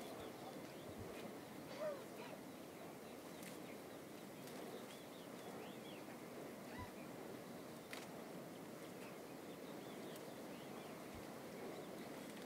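Quiet rural outdoor ambience: a steady soft hiss with faint, scattered bird chirps, and a brief sharp sound about two seconds in.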